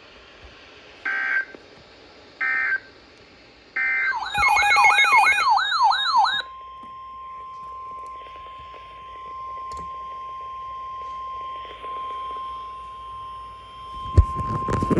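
NOAA Weather Radio alert sequence: three short screechy bursts of digital SAME header data, a warbling alarm for about two seconds, then the steady 1050 Hz weather-radio warning tone held for about eight seconds. The tones signal that a new warning, here a severe thunderstorm warning, is about to be read.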